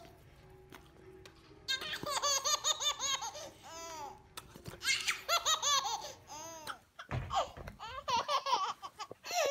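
A baby laughing hard in rapid, high-pitched fits of giggles, in two long bouts; a short low thump near the end, followed by more short laughs.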